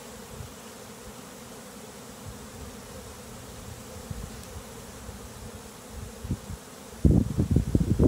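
Honey bee swarm buzzing steadily as the bees crawl into the hive box. About seven seconds in, loud wind rumble on the microphone breaks in over the buzzing.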